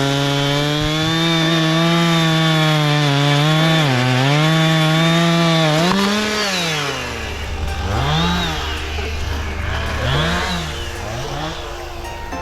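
An engine running hard at high revs for several seconds, dipping briefly a couple of times, then revved in a series of quick throttle blips that rise and fall in pitch.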